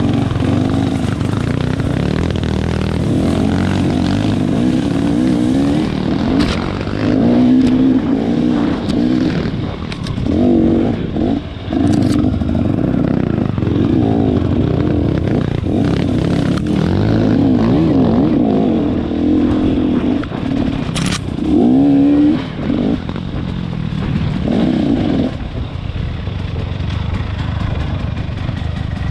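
Off-road trail motorcycle engine revving hard, its pitch rising and falling again and again with the throttle, with a few sharp knocks. It drops to a lower, steadier level for the last few seconds.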